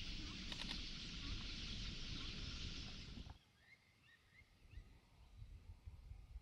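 A steady hiss that cuts off about three seconds in, then faint, scattered chirps from a flock of red-billed quelea over a low rumble, with a low thump near the end.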